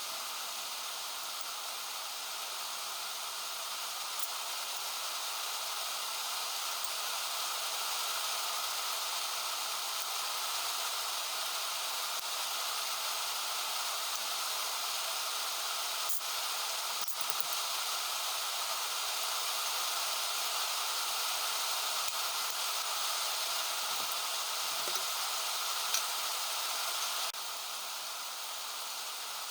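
Heavy rain falling, a steady hiss with no break, and a few faint clicks about halfway through and near the end. The level drops slightly near the end.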